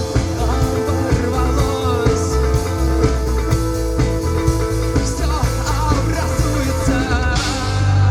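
Rock band playing live, with drums, bass and melodic lines on top. About seven and a half seconds in, the drums stop and a held low bass note carries on.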